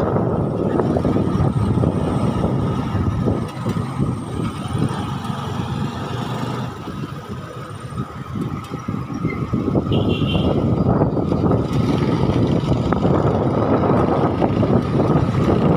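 Engine of a moving vehicle running while driving, with road and wind noise; the sound eases off briefly about halfway through.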